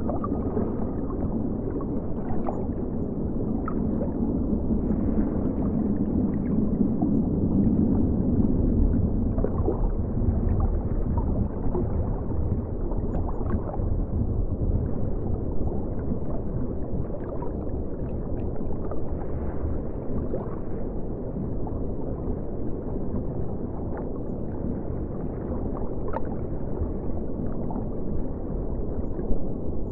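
River water flowing and gurgling, heard as a steady, muffled low rush from a camera set in the river, with scattered faint ticks; it swells slightly a few seconds in.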